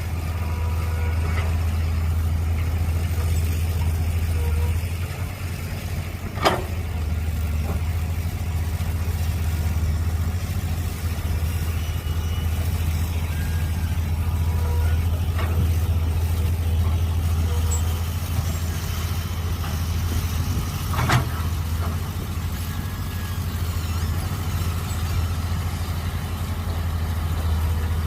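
Mini excavator's engine running steadily under working load, easing briefly about five seconds in. Two sharp metallic knocks ring out, one early and one about fifteen seconds later.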